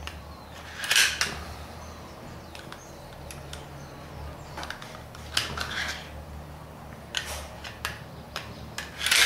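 Clicks and scrapes of a Glock 27 pistol slide being handled and pressed at its rear, where an aftermarket slide cover plate sits: a sharp click about a second in, a run of clicks in the middle, and more near the end.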